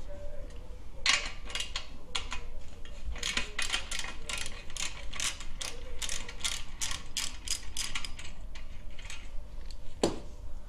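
Socket ratchet wrench clicking in quick runs, about four clicks a second, as it is swung back and forth on the muffler mounting bolts. A single sharp knock near the end.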